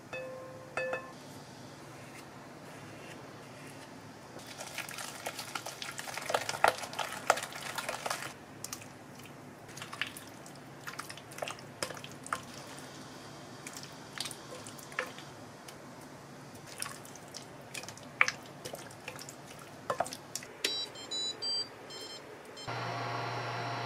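A wooden spoon mixing chicken pieces into a thick gochujang marinade in a glass bowl: wet squishing with scattered clicks and scrapes of the spoon against the glass, busiest for a few seconds early on. Near the end come a few short beeps, then a steady electrical hum starts.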